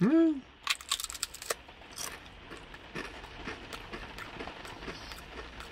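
A crisp tortilla chip bitten and chewed: a quick run of sharp crunches about a second in, then quieter scattered chewing crunches.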